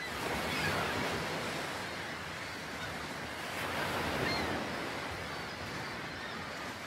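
Ocean surf washing onto a sandy beach: a steady rushing hiss that swells about a second in and again past the middle.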